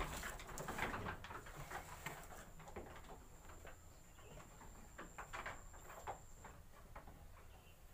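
Sheep shuffling in a wooden slatted pen as they are handled, with scattered light knocks of hooves on the boards and rustling, loudest in the first second.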